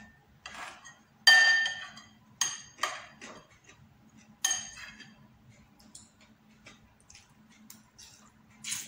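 Metal fork and spoon clinking and scraping against a ceramic bowl and plate while noodles are lifted, a few sharp clinks with a brief ring, the loudest about a second in. Near the end, a short slurp of noodles.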